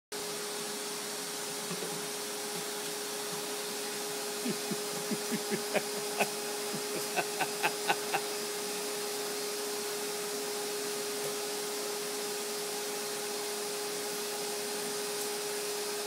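Vacuum cleaner running steadily with a constant hum. From about four and a half to eight seconds in, a quick run of a dozen or so sharp taps comes at roughly three a second.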